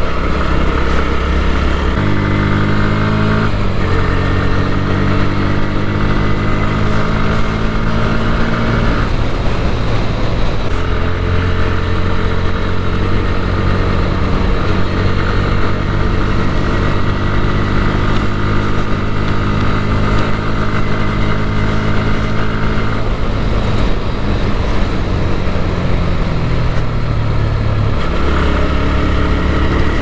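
Bajaj Pulsar NS160's single-cylinder engine pulling under the rider, its pitch climbing in each gear and dropping back at each upshift several times, then falling away as the bike slows near the end.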